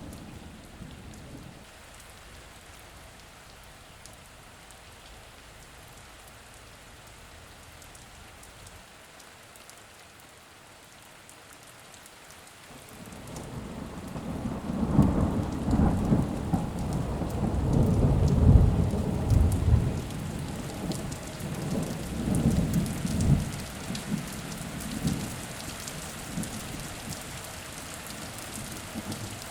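Steady rain falling, with a long roll of thunder that builds about halfway through, peaks in several low rumbling waves and fades away near the end.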